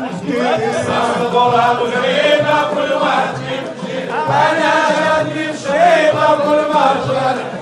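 Dakka Marrakchia chanting: a lead male singer on a microphone with a chorus of men singing in unison, long held and bending phrases.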